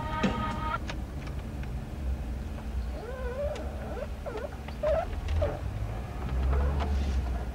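Car running along a street, heard from inside, with a steady low rumble from the engine and road. A steady tone stops just under a second in, and from about three seconds in there is a run of short, wavering, whining pitched sounds.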